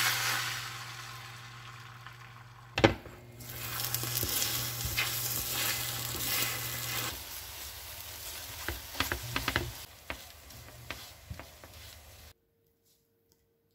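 Beaten eggs hitting a hot oiled pan with a burst of sizzling, then sizzling and scraping as a spatula stirs them into scrambled eggs. A single sharp knock comes about three seconds in, and the sound cuts off suddenly near the end.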